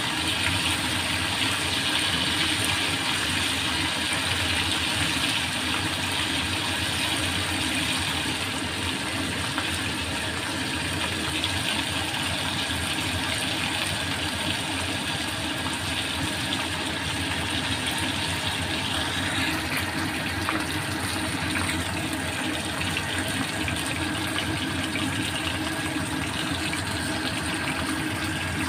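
Flour-coated meat slices sizzling steadily as they shallow-fry in a little oil in a stainless steel wok over low heat. The sizzle eases slightly about two-thirds of the way through.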